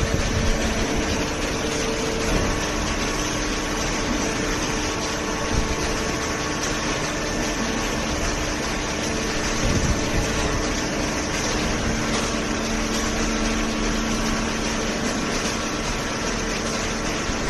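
Semi-automatic hydraulic carton baler running, its hydraulic pump and motor giving a steady mechanical hum with a few faint held tones.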